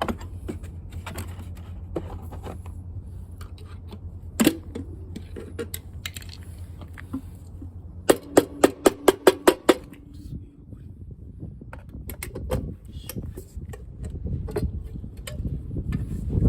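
Metal hand tools working on a scooter's bolts: scattered clinks and a sharp knock about four seconds in, then a quick run of about eight loud ratchet clicks, roughly five a second, just past halfway.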